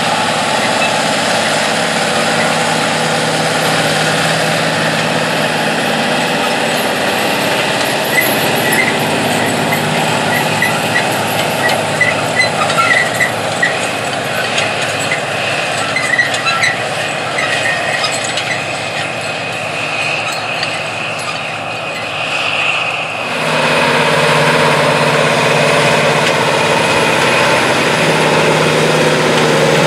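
Diesel engine of a big John Deere tractor running steadily under load as it pulls a field cultivator through tilled soil, with scattered light clicks and rattles through the middle. About three-quarters of the way in the sound changes abruptly to a somewhat louder, closer engine.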